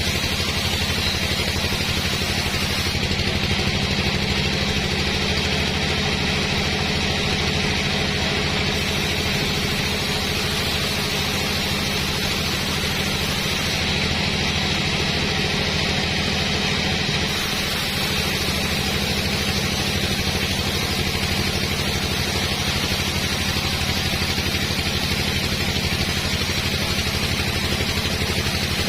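Sawmill running steadily: a low engine drone with a constant hiss above it, holding an even level throughout.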